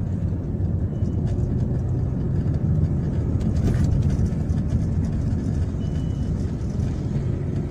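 Car driving on a road, heard from inside the cabin: a steady low rumble of engine and tyres, swelling slightly around the middle.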